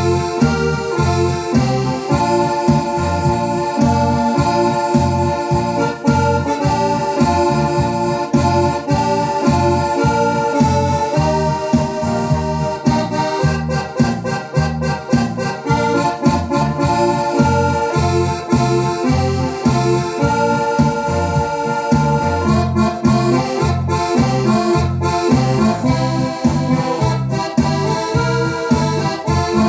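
Electronic keyboard playing sustained melody notes over a steady automatic rhythm accompaniment, heard through an external loudspeaker box.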